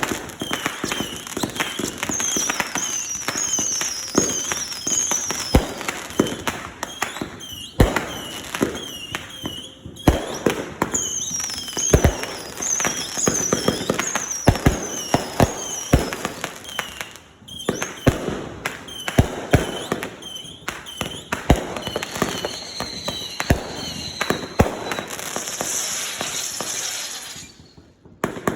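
Consumer fireworks going off in quick succession: sharp launch thumps and bangs with runs of short whistles that fall in pitch, and a crackling hiss near the end.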